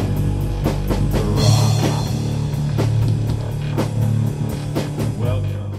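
Rock intro music with a drum kit and guitar, cutting off abruptly at the end.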